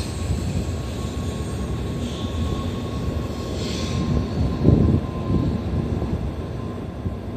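N700 series Shinkansen train departing and picking up speed, its cars rolling past with a steady rumble and hiss. A faint steady high tone is held through most of it.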